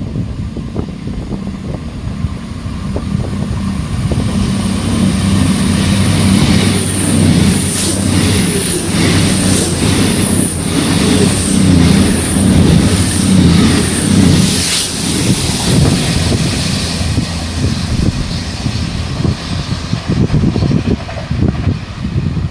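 Virgin Voyager diesel multiple unit passing at speed: its underfloor diesel engines hum steadily, building to a peak in the middle and easing off towards the end, with a run of evenly spaced clicks in the middle.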